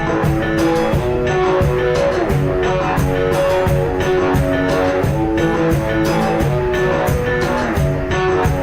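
Live rock band playing an instrumental intro: guitar, bass and drum kit in a steady groove, with no singing.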